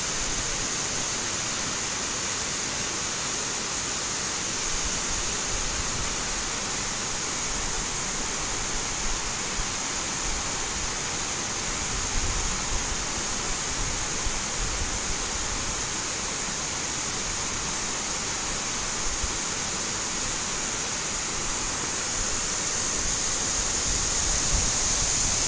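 Water spilling over a small intake dam's concrete weir and cascading down a concrete chute into a narrow channel: a steady, even rushing hiss.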